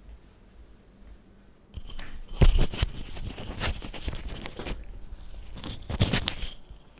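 Crackling, rustling handling noise with many sharp clicks, like plastic packaging being handled and crumpled. It starts about two seconds in and stops shortly before the end.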